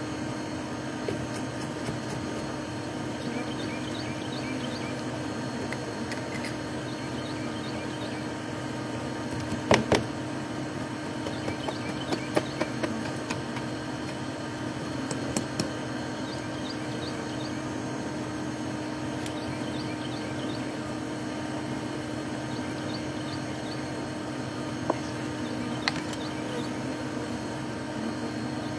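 Steady hum of many honeybees buzzing around an opened wall hive, with scattered sharp clicks and knocks from honeycomb being cut and handled, the loudest a short cluster about ten seconds in.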